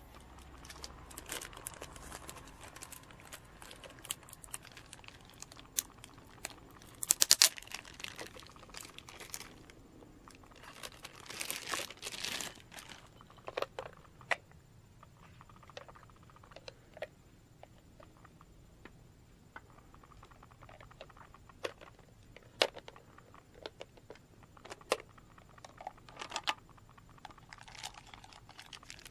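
Clear plastic packaging crinkling and plastic parts of a toy kit clicking and tapping as they are handled, in scattered short bursts, the loudest crinkle about seven seconds in.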